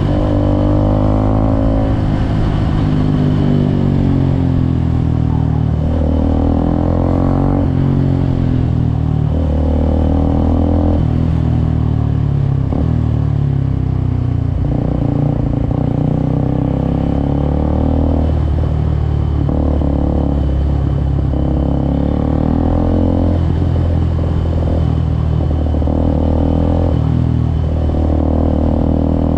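Suzuki Gixxer SF 250's single-cylinder engine pulling a motorcycle along on a ride. Its note rises and falls repeatedly with the throttle and gear changes.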